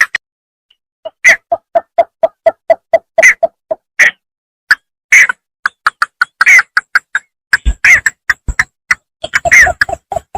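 Bittern (bambangan sawah) calling: a fast series of short, clipped notes, about three a second, with louder, higher notes mixed in. The calls start after a brief pause near the beginning.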